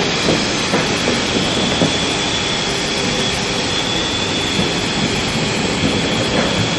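Steady machine noise from the stadium roof-washing work: a low rumble under a constant high whine, with scattered small knocks.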